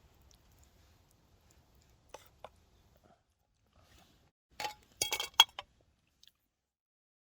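Metal utensil clinking against camp cookware: two light taps about two seconds in, then a quick run of louder, ringing clinks about five seconds in.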